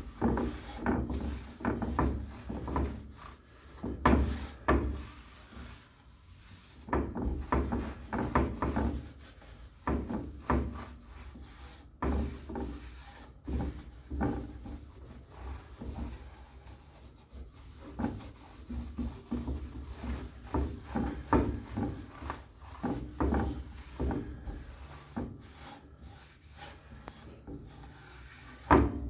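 Cloth wiping excess hardwax oil off a walnut sign, in repeated irregular rubbing strokes across the wood.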